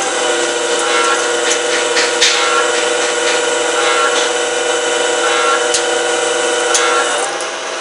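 CNC lathe running and cutting: a steady whine of several held tones over a hiss of machining, with a few sharp ticks, the tones shifting near the end.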